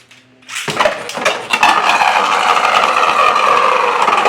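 3D-printed Beyblade spinning tops launched into a plastic stadium: a quick run of clicks and clattering about a second in, then a loud steady whirring grind as the tops spin and rub against the stadium and each other.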